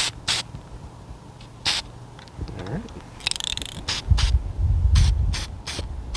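Aerosol spray can spraying onto a steel strap hinge in short bursts, with a longer hiss about three seconds in. A low rumble about four seconds in.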